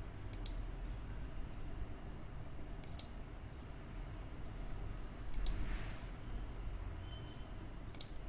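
Computer mouse button clicking four times, about two and a half seconds apart, each click a quick pair of snaps, over a low steady hum.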